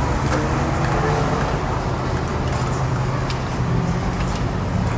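Steady rumble of skateboard wheels rolling over wet pavement mixed with street traffic, with a few faint clicks and some distant voices.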